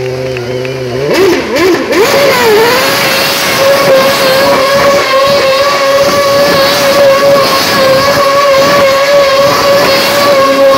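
Formula One car's engine revving hard about a second in, dipping briefly, then held at a steady high pitch as the car spins donuts with its rear wheels spinning in clouds of tyre smoke.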